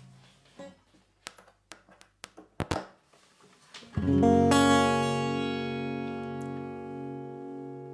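Knocks and taps of an acoustic guitar being picked up and settled into place, then about four seconds in a single strummed chord on the steel-string acoustic guitar rings out and slowly fades.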